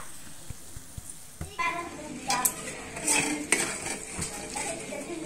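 A spatula scrapes and stirs potatoes, peas and tomatoes in a metal kadhai, making a series of irregular scrapes and light knocks against the pan.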